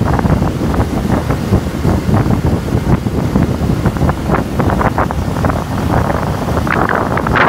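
Heavy wind buffeting the microphone while it moves across a bridge, a loud rough rumble over a low steady drone.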